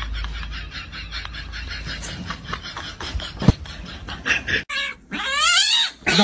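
A kitten mewing in high, gliding cries near the end. Before it come quick, rhythmic breathy pulses, about four or five a second, and one sharp knock.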